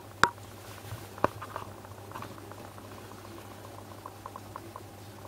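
Black 600-A2 rotary-dial telephone being handled: two sharp clicks about a quarter second and a second and a quarter in, then faint, irregular mechanical ticking for a few seconds.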